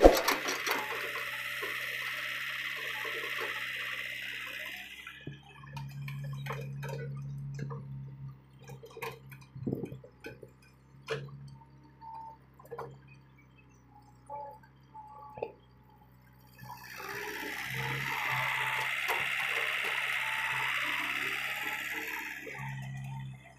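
Small tracked excavator at work loading sand: a loud hissing rush from its engine and hydraulics lasting about five seconds, at the start and again later. In between, a steady low hum with scattered knocks and clanks.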